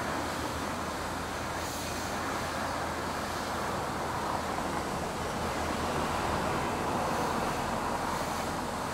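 Steady outdoor road-traffic noise, an even rushing hum that grows slightly louder partway through.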